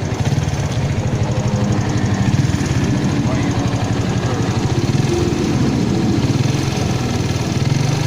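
Modenas motorcycle's small four-stroke single-cylinder engine idling steadily after its scuffed-piston repair, with not much to hear: no piston slap or rattle stands out.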